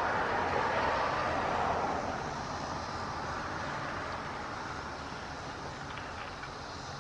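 Federal Signal DSA outdoor warning sirens sounding from a distance, their tone blurred by echo into a broad wash that drops off about two seconds in and keeps fading, over a steady low rumble.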